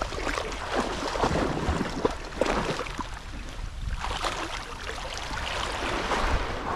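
Shallow sea water splashing and sloshing in irregular bursts, from a person wading and two Dobermans swimming close by.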